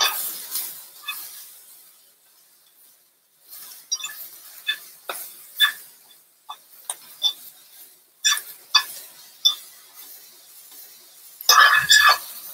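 A metal fork clinking and scraping against a skillet as kale and tomatoes are stirred while the kale wilts. A string of sharp irregular clinks, busiest near the end, over a faint sizzle.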